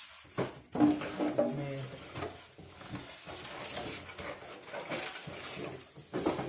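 Packing being handled: cardboard and polystyrene foam knocking and scraping, with a few sharp knocks and some short squeaky sounds.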